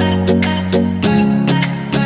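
Background music: a quick run of plucked notes, a few to the second, over a steady bass.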